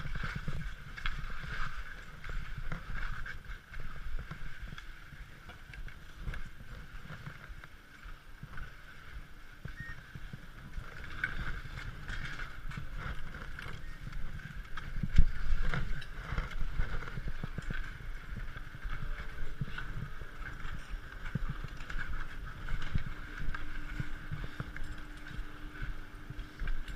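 Skis scraping and sliding over packed snow, with irregular knocks from ski poles and one sharp hit about halfway through. A steady low hum joins in near the end.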